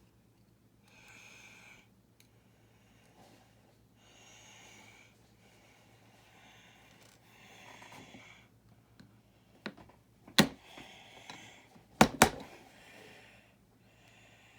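A few soft nasal breaths, then several sharp clicks of plastic building-brick pieces being handled and snapped together, the loudest a quick pair late on.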